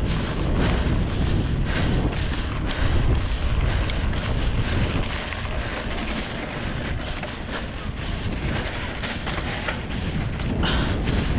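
Wind buffeting the microphone, a dense low rumble with a few scattered ticks.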